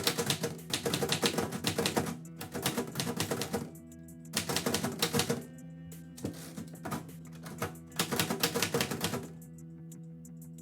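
Typewriter keys clacking in quick runs, five bursts of rapid strikes with short pauses between them, stopping about nine seconds in. Soft background music runs underneath.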